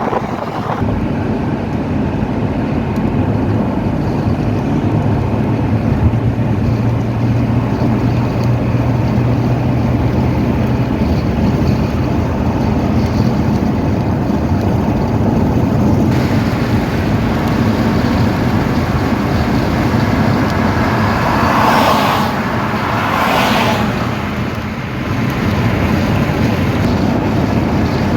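Steady road and traffic noise of a car on the move. Two louder whooshes come about three quarters of the way in.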